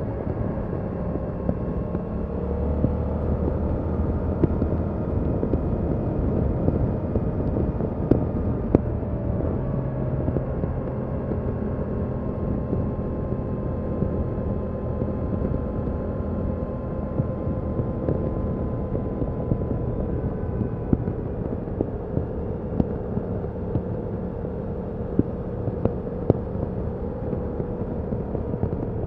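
Yamaha MT-07's 689 cc parallel-twin engine on its stock exhaust, running steadily as the bike rides along, its note drifting gently up and down in pitch over a background of road and wind noise.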